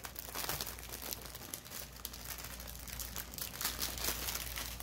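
Thin plastic bags of crystal diamond-painting drills crinkling as they are handled and pulled apart, a string of irregular crackles.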